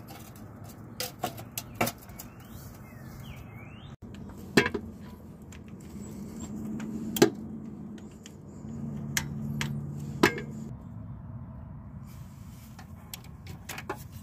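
Metal clicks and clinks of hand tools and bolts as a starter motor is bolted in and its wires are attached. There are a few separate sharp clicks, the loudest about four and a half, seven and ten seconds in.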